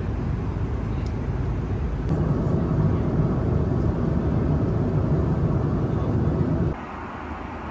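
Steady low rumbling cabin noise inside an Airbus A330 airliner. It rises a step about two seconds in, then drops suddenly to a quieter hum about seven seconds in.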